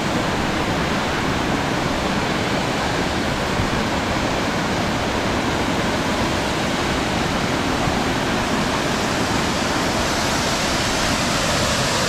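A mountain waterfall running steadily: an even, unbroken rush of falling water.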